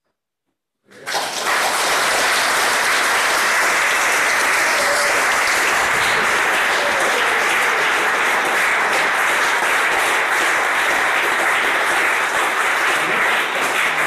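Audience applauding. The clapping starts about a second in, after a brief silence at the close of an a cappella song, and then keeps up steady and thick.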